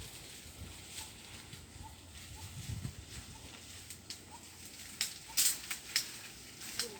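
Hikers moving through brush over the low rumble of wind, with several sharp snaps and cracks near the end.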